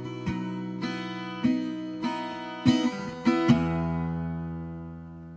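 Solo mahogany acoustic guitar playing a slow closing phrase of picked notes and chords, the last chord struck about three and a half seconds in and left to ring and fade out.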